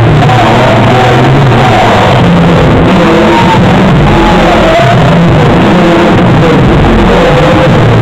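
Loud music with a wavering melody over a low bass line, playing without a break.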